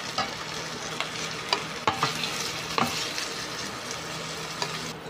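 Green bell pepper pieces sizzling in hot oil in a stainless steel pot, with a wooden spoon knocking and scraping against the pot several times as the pieces are stirred and scooped out.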